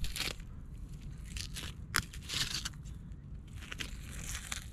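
Fillet knife slicing a large California sheepshead's fillet away from its rib cage: irregular crunching, tearing and scraping strokes, with a sharp click about two seconds in.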